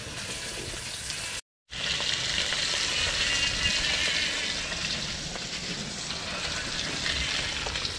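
Whole fish frying in hot oil in a wok, a steady sizzle. It cuts out briefly about one and a half seconds in, then comes back a little louder.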